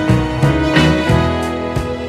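Background music: a pitched instrumental track with a steady pulse of notes.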